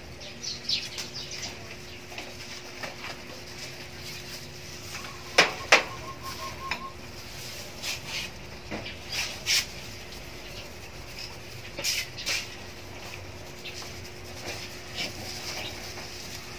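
Kitchen handling sounds at a steel prep table: scattered light clicks and knocks of utensils and containers while a pizza is topped, with two sharper clacks about five seconds in followed by a brief beeping tone. A faint steady hum runs underneath.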